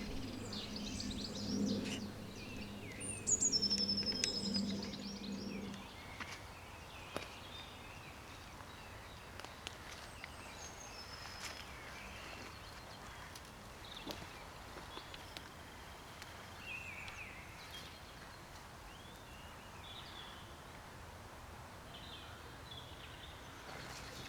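Woodland birds calling: scattered short chirps and a few falling whistles over a faint outdoor background. A low steady hum sounds under them and stops about six seconds in.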